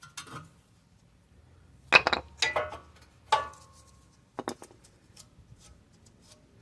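Sharp metallic clinks and knocks, about five spread over several seconds, one ringing briefly, as a brake pad is worked out of a disc brake caliper.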